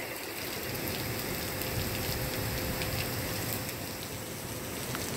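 Heavy monsoon rain pouring down steadily onto wet pavement: an even hiss with scattered ticks of single drops.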